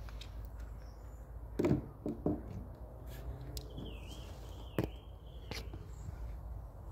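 A few scattered footsteps and knocks, and a bird chirping twice with a short wavering call about four seconds in, over a low steady rumble.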